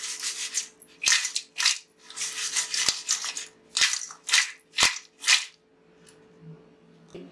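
Crisp fried chapati strips tossed in a stainless steel bowl to coat them with masala: about ten quick crunchy rustles with a few sharp clicks against the metal, stopping about five and a half seconds in.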